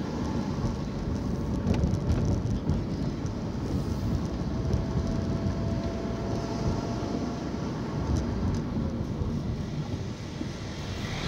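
Car engine and tyre noise heard from inside the cabin while driving slowly through town streets: a steady low rumble.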